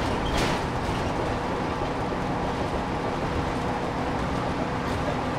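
Steady engine and road noise inside the cab of a step-van food truck driving at highway speed.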